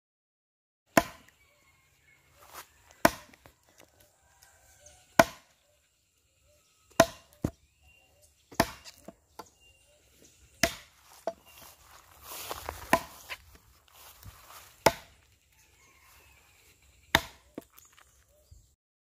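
Axe chopping into a log to hollow out a wooden mortar: sharp wood-cutting blows about every two seconds, starting about a second in.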